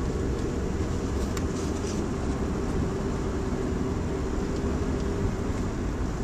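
Road noise inside a moving car's cabin: a steady low rumble from the car driving along.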